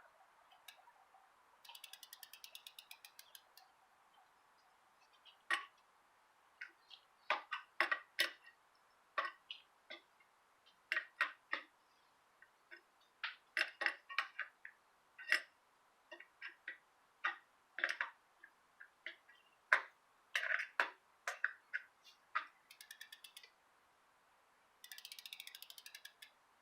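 Bicycle wheel spun by hand, its hub ticking rapidly for about two seconds near the start and again near the end. In between come scattered sharp clicks and light metallic knocks as the spokes are adjusted during wheel truing.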